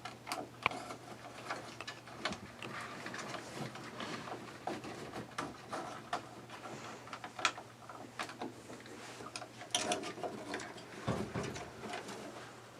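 Irregular small clicks, taps and plastic rattles of hands working parts of a Fantastic Fan roof vent, as its rain sensor is fed up through the housing. There are a few sharper clicks, and a cluster near the end, over a faint steady hum.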